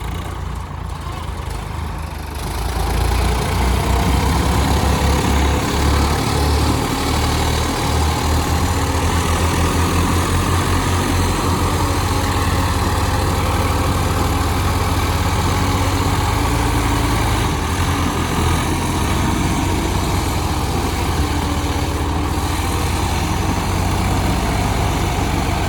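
Diesel tractor engine running. It picks up and grows louder about two and a half seconds in, then runs steadily.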